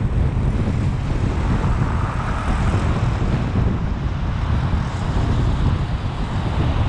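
Steady low rumble of a car driving, with wind buffeting the microphone and road noise.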